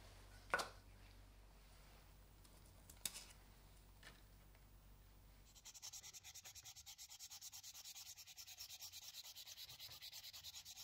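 Fine P1200 wet-and-dry sandpaper rubbed in rapid, short back-and-forth strokes over a wet plastic toy window, a quick rhythmic scratching that starts about halfway through. Before it, a low hum with two sharp clicks.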